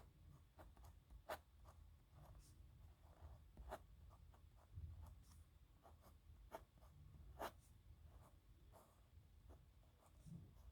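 Faint scratching of a nib pen on paper in short, irregular strokes, with a few sharper ticks of the nib.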